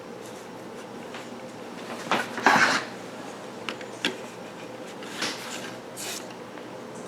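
Plastic parts of a refrigerator evaporator fan assembly being handled and fitted: a few sharp clicks and short scrapes, the loudest a brief rattle about two and a half seconds in, over a faint steady hum.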